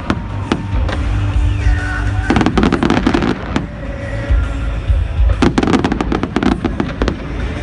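Fireworks going off in rapid volleys of sharp bangs and crackles, with two dense flurries about two and a half and five and a half seconds in, over music playing.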